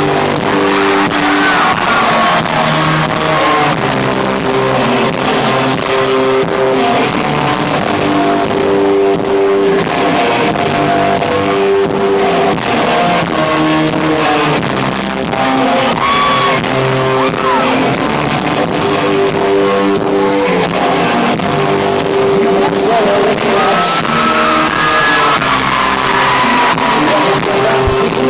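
Guitar-led rock band playing live, heard from within the concert crowd, with a few whistles and cheers from the audience here and there.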